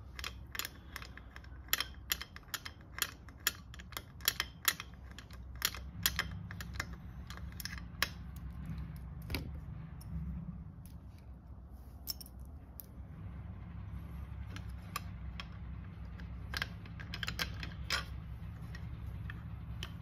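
Small metal clicks and taps of bolts and hand tools being handled at a motorcycle engine's open clutch side, coming irregularly and thickest in the first half, over a low steady hum.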